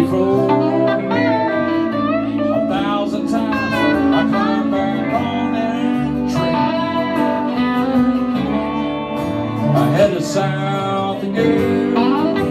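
Live band playing a blues song on electric and acoustic guitars, with lead guitar notes bending up and down in pitch.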